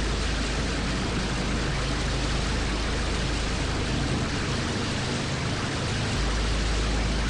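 A docking car ferry: a steady rushing of churned water with a low diesel-engine rumble under it. The rumble thins for a moment a little after the middle.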